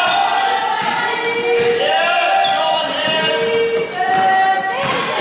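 A group of voices singing in long held notes, with the echo of a large hall.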